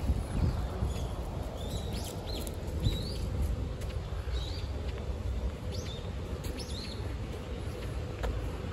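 Small birds chirping: short, quick notes, each rising or falling in pitch, repeated several times, over a steady low rumble of wind and ambient hum.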